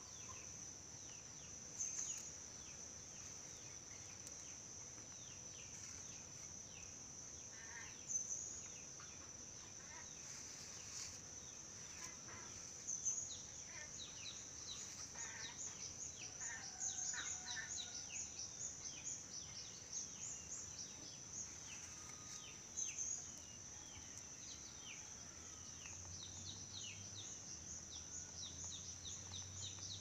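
Faint background of a steady high-pitched insect drone, with many short, thin, falling bird chirps that come thicker from about halfway through.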